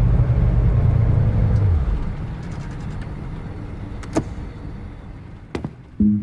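A car's engine rumbling low and loud, fading over the first two seconds into a quieter hiss. Two sharp clicks follow, about four seconds in and again near the end.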